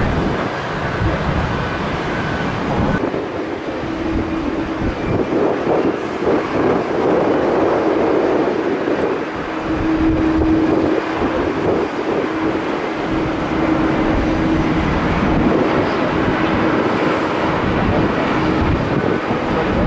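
Jet airliner engines running: a steady rushing noise with a low hum that comes in a few seconds in, louder for a few seconds around the middle.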